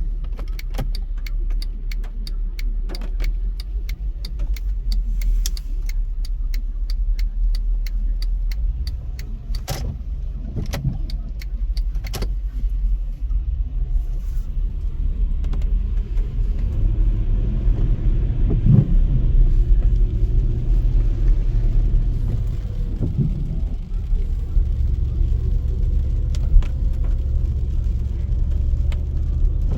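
Car driving on wet city roads, heard from inside the cabin: a steady low rumble of road and engine noise, with a run of quick sharp clicks through about the first twelve seconds.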